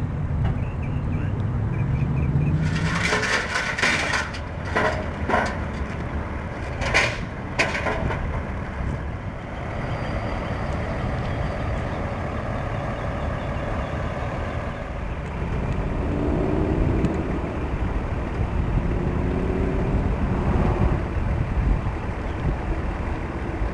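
Ford Atlas concept pickup's engine running with a steady low rumble, rising in pitch over the first couple of seconds and again about two-thirds of the way through as the truck is driven off. A few seconds in comes a cluster of loud, short bursts of hiss or clatter.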